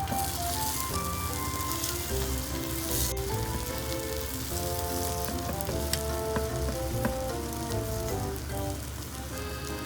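Hot oil sizzling steadily as food fries in a pan, with light instrumental background music playing over it.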